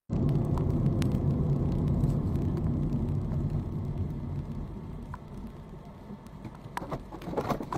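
Low road and engine rumble of a moving car heard from inside the cabin, loudest at first and easing off over the first few seconds, with a few sharp clicks near the end.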